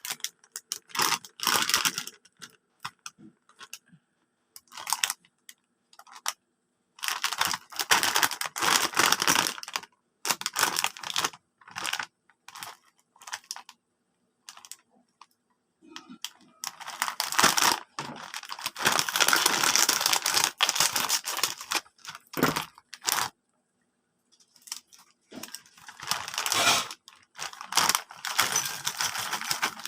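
Plastic snack bag of Chippy corn chips crinkling as it is handled, in irregular bursts with short pauses.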